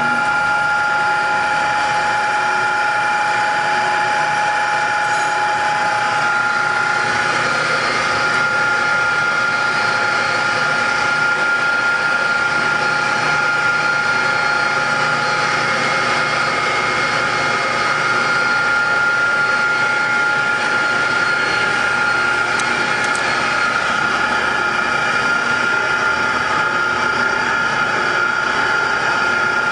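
Electric motor and gear drive of a Colton single-arm sigma-blade mixer running empty at steady speed: a constant mechanical hum with a steady high whine.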